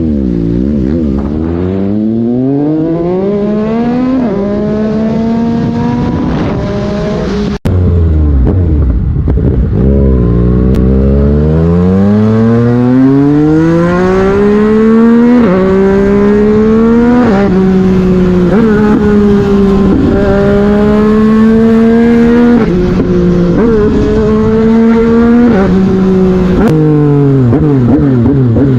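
A 2021 Yamaha MT-09's inline three-cylinder engine under way, slowing at first and then accelerating again and again, its pitch climbing through the gears with a sudden drop at each upshift. The sound cuts out for an instant about seven and a half seconds in.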